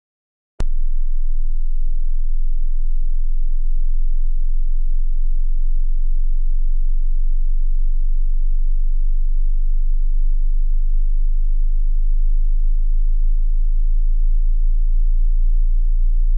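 Hearing-test sine tone at a very low pitch, below about 50 Hz, starting abruptly with a click about half a second in and then holding steady.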